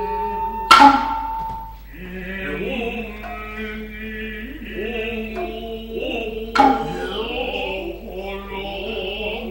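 Noh music: a male chorus chanting utai in low, wavering unison over a held drone, cut twice by sharp, ringing hand-drum strikes, about a second in and again about two-thirds of the way through.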